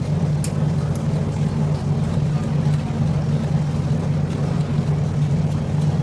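A steady low mechanical drone, like a motor or engine running continuously, with a couple of faint ticks about half a second and a second in.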